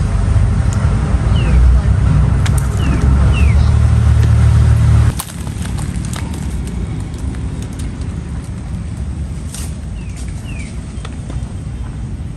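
A motor engine running steadily, then cutting off abruptly about five seconds in. After that, a quieter background with a few short chirps.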